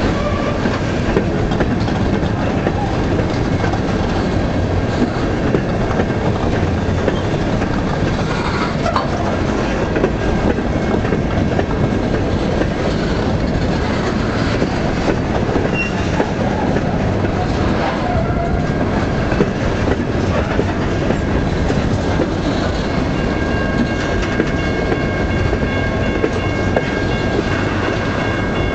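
Freight cars rolling past at close range: a steady loud rumble of steel wheels on rail, with continual clicking over the rail joints.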